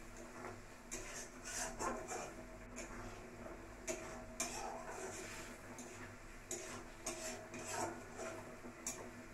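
A spatula scraping and knocking against a metal kadai as a thick curry gravy is stirred, in irregular strokes roughly a second apart, over a faint steady hum.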